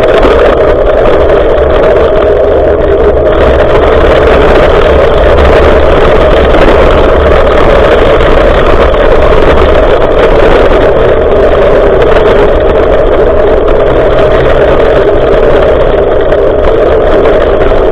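Wind rushing over an action camera's microphone on a moving bicycle, heard as a loud, steady rumble without a break, with road noise from the ride beneath it.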